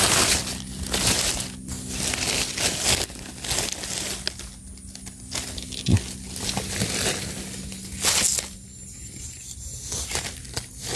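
Dry leaf litter rustling and crackling and soil scraping as hands and a knife clear the ground around a mushroom, in irregular bursts with a sharp click about six seconds in.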